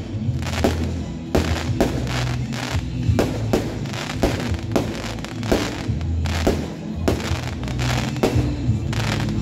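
Fireworks display: aerial shells bursting in a rapid run of sharp bangs, about two a second.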